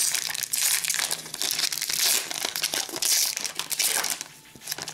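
Foil trading-card pack wrapper crinkling and crackling as it is handled and torn open by hand, the crackling easing off near the end.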